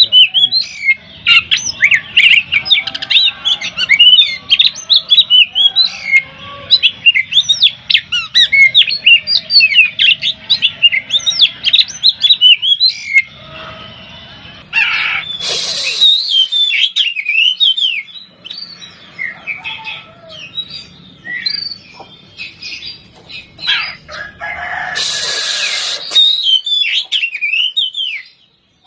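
Oriental magpie-robin (kacer) singing a fast, loud run of sharp whistled and chattering notes, broken by two short harsh rasping bursts, one about halfway through and one near the end.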